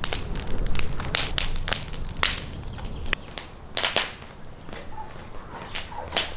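Wood fire of split wooden slats crackling with sharp pops and snaps, thickest in the first three seconds and sparser after.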